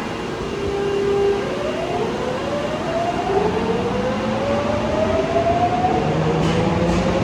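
Osaka Metro Tanimachi Line subway train pulling away, its traction motors whining in several tones that rise steadily in pitch from about a second and a half in, over the rumble of the cars.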